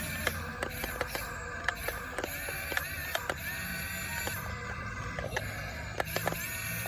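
RC toy excavator's small electric motors whirring, with many irregular sharp clicks and clacks from its tracks and plastic parts as it moves.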